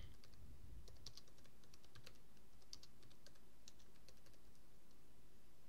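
Faint typing on a computer keyboard: light, irregularly spaced key clicks.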